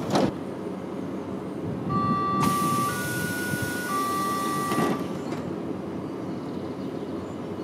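Berlin S-Bahn class 480 train's door-closing signal: three steady warning tones, low, high, then low again, over a loud hiss of the doors closing, ending in a thump about five seconds in. Under it the standing train's steady running noise goes on, with a sharp click right at the start.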